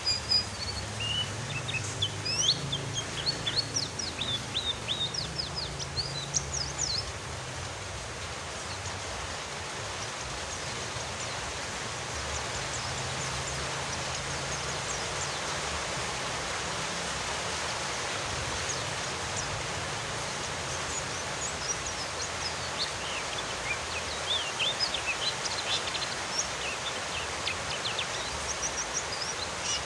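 Steady rain hiss with white-eyes (pleci) chirping and twittering in quick high notes during the first several seconds and again over the last several seconds; in the middle the rain carries on nearly alone.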